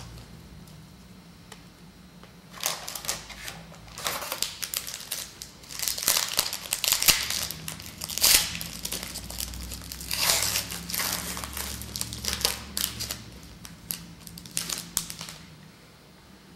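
Foil wrapper of a 2007 Leaf Certified Materials Football card pack being torn open and crinkled, in a run of crackling rustles that starts about two and a half seconds in and stops shortly before the end.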